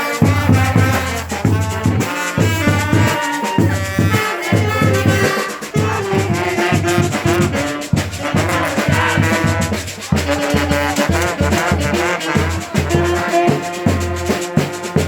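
Street brass band playing: trombones, trumpets and saxophones over a steady beat of surdo bass drums and snare drums.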